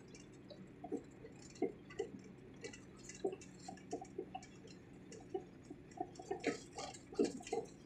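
Irregular light clicks and knocks of a Mahindra Jeeto mini-truck's cab rattling as it drives over a rough, patched road, over a faint low hum, with the strongest knocks about six and a half and seven seconds in.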